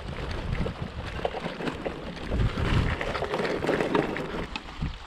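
Wind buffeting the microphone of a camera riding on a moving bicycle, mixed with the rattle and knocks of a loaded mountain bike bouncing over a rough grassy track.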